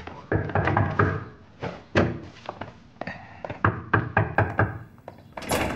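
Knocking on a door: several separate knocks, then a quick run of knocks about four seconds in, over background music.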